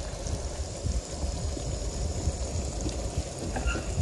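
Flour-dredged herring fillets frying in hot oil in a pan: a steady sizzle and bubbling of the oil.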